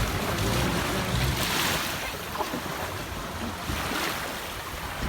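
Sea waves washing in, an even rushing noise that swells about one and a half seconds in, with some wind on the microphone.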